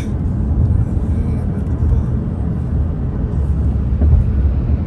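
Car driving at highway speed, heard from inside the cabin: a steady low road and engine rumble.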